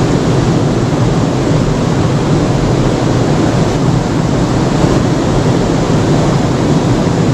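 Steady rushing of a flowing river, an even noise that keeps up without a break.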